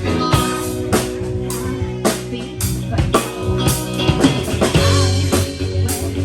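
Band music with a drum kit keeping a steady beat, bass and electric guitar, in a blues-rock style.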